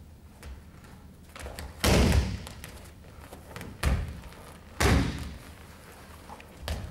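Bodies landing on a wrestling mat during a throw and takedown: several heavy thuds, the loudest about two seconds in and again about five seconds in, with lighter thumps between and near the end.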